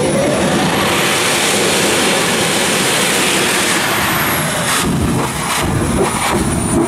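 Jet engine of a jet-powered golf cart running loud, a steady roar with a high turbine whine that climbs and then falls away. From about five seconds in, several sharp bangs come over the roar as the exhaust flames.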